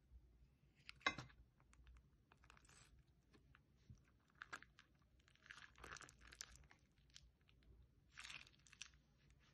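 Faint, irregular crackling and crinkling as a plastic bag of slime is squeezed and its contents pushed out into a glass dish. The sharpest crackle comes about a second in, and shorter rustling bursts follow a few times after.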